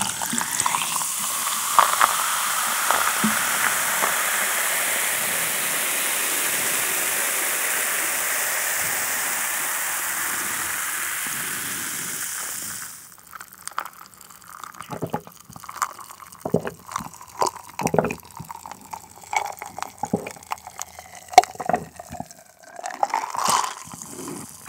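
Cola poured from a plastic bottle into a glass of ice, fizzing with a steady hiss that cuts off about 13 seconds in. It is followed by a run of short gulps and swallows as the cola is drunk.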